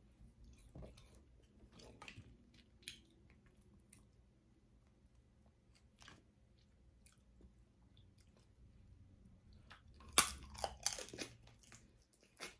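Close-up chewing with scattered faint clicks and crunches of crab shell, then a quick cluster of loud cracks and snaps about ten seconds in as a crab leg is popped open.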